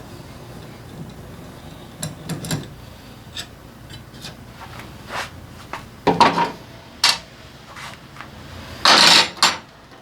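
Metal hand tools and small steel parts clinking and knocking during motorcycle engine disassembly, with several louder knocks about six seconds in and a short harsh rasp near the end.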